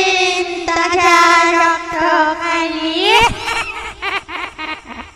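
A high-pitched voice holding long, wavering sung notes, sliding up in pitch about three seconds in, then breaking into quick short choppy notes.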